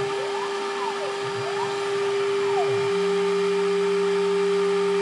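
Two-spindle CNC lock-boring machine running its program: the air-cooled 24,000 rpm spindle gives a steady whine, while the axis drive motors whine up and down in pitch several times as the head moves. About three seconds in the pitch glides stop and a steady lower hum joins the spindle whine.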